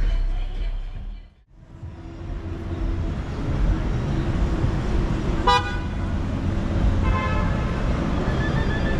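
Background music fading out over the first second and a half, then city street traffic noise. A single short vehicle horn toot sounds a little past the middle.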